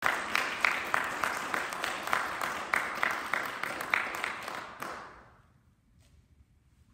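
Audience applauding, dying away about five seconds in, then near silence.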